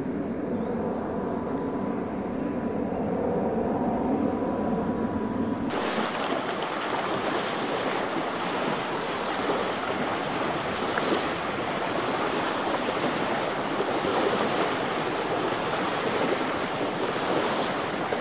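A steady low hum with a faint held tone, then a sudden change about six seconds in to an even rushing: small waves lapping on a sandy river beach, with wind on the microphone.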